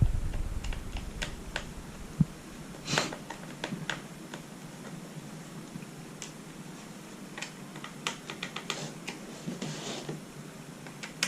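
Small, irregular clicks and taps of a screwdriver working screws out of a laptop's plastic bottom case, with a brief scrape about three seconds in and a quick run of clicks near the end.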